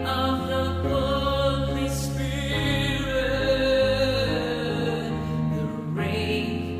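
Slow worship music of long held chords that change every second or two, with a choir-like singing layer over them.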